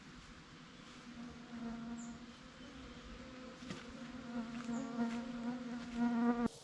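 A flying insect, such as a bee or fly, buzzing close by with a steady hum that wavers in strength, swells louder near the end and then cuts off suddenly.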